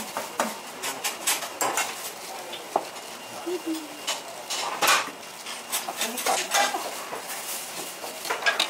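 Kitchen knife slicing gimbap rolls on a cutting board: a quick, irregular run of sharp knocks of the blade against the board, with clinks as pieces are set on a plate. The loudest knock comes about five seconds in.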